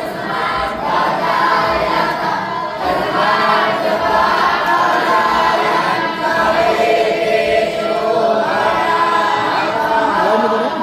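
Many voices chanting together in unison, a devotional group chant that runs on without pause.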